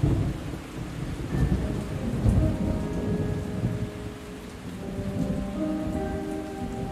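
Recorded thunderstorm ambience: irregular thunder rumbles over steady rain. Faint held musical notes fade in over the storm about halfway through.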